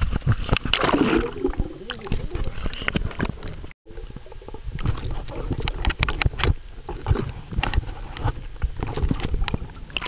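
Swimming-pool water sloshing and gurgling over the microphone as the camera is dunked at the surface, full of sharp crackles and a low rumble. The sound cuts out completely for a moment just before four seconds in.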